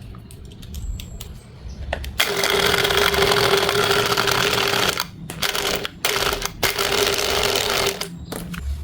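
Samsung washer-dryer making a loud noise as it draws in water: a rushing hiss with a steady hum that starts about two seconds in, breaks off briefly a few times, and stops near the end.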